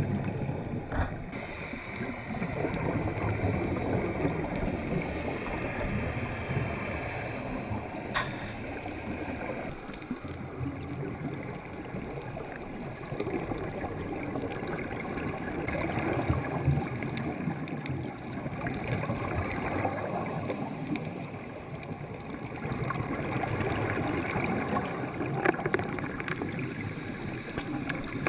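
Underwater sound heard through a GoPro camera's homemade waterproof case: a muffled, gurgling rush that swells and fades every few seconds, with divers' exhaled bubbles from their regulators.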